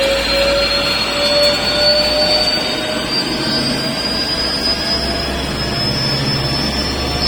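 CNC turning-milling centre running under power: a steady high whine from the spindle drive that slowly rises in pitch, over the noise of the machining.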